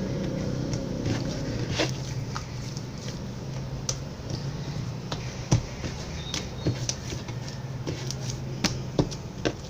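Slime being worked by hand, giving scattered small clicks and pops at irregular intervals over a steady low hum.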